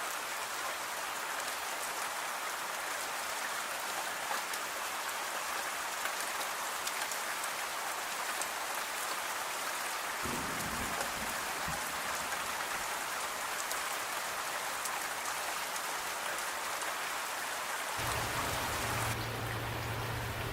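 Steady rain falling, an even hiss of many drops. A short low rumble comes about halfway through, and a low steady hum joins near the end.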